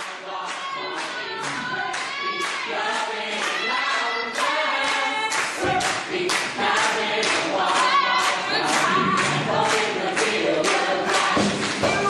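A stage musical ensemble singing together over an up-tempo accompaniment with a steady beat. The sound grows louder and fuller, with deeper instruments coming in about halfway through.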